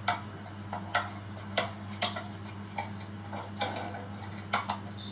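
About seven sharp clicks at uneven intervals, roughly one every half second to a second, over a low steady hum.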